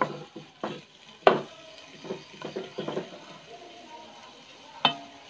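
Wooden spatula stirring and scraping a thick onion-tomato masala with chopped liver around a nonstick frying pan, over a faint sizzle. The scrapes and knocks come irregularly, about one a second, the loudest about a second in and another near the end.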